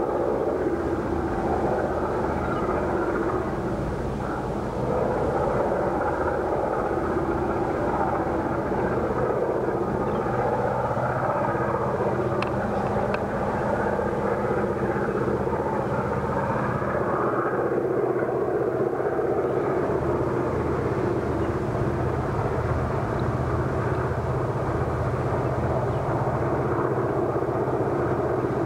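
Diesel locomotive engines running steadily under load, a continuous low drone with a steady pitch.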